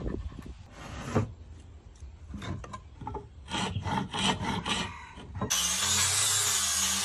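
Hand tools scraping in short strokes along hardwood beams as they are marked out with a pencil and a wooden marking gauge. About five and a half seconds in, this cuts abruptly to an electric orbital sander running steadily on a flat board, a loud hiss over a low hum.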